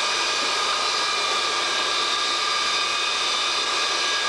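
KC-135A's Pratt & Whitney J57 turbojet engines running steadily on a ground engine run, heard from inside the cockpit: a loud, even rush with a steady high whine.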